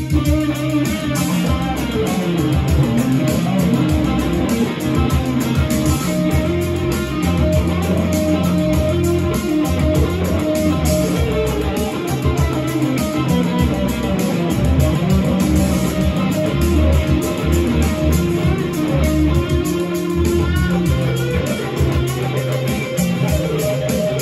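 Stratocaster-style electric guitar improvising a melody over a backing track with a bass line and a steady beat.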